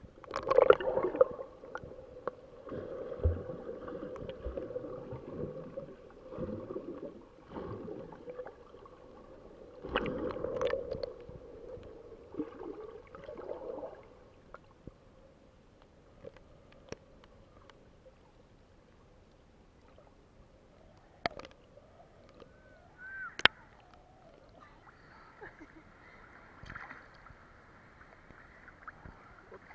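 Muffled sloshing and gurgling of sea water against a waterproof camera housing held underwater. It drops to near quiet about halfway through, with a few small clicks, and a faint hiss of surface water comes in near the end as the camera breaks the surface.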